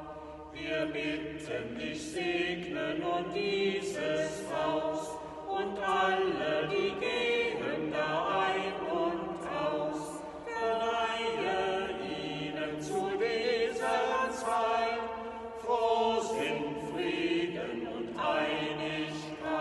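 A small group of Sternsinger (carol singers) singing a song together.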